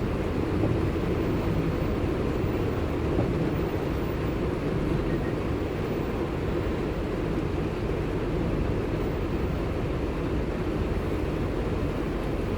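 Steady low rumble of a car driving, heard from inside the cabin: engine and road noise, even throughout.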